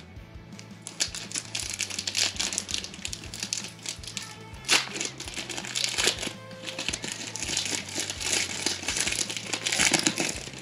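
Crinkling and rustling of a Panini Certified football card pack's wrapper as it is handled and opened, in irregular crackly strokes.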